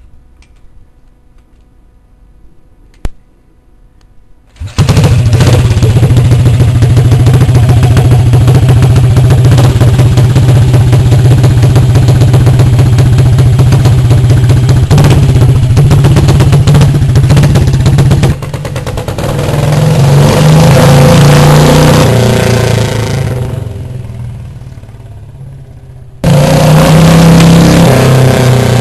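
Vintage Ariel 350 single-cylinder motorcycle engine on a custom bobber catching and starting about five seconds in, after a single click. It then runs loud and steady, swells and fades in the middle, and comes back loud suddenly near the end.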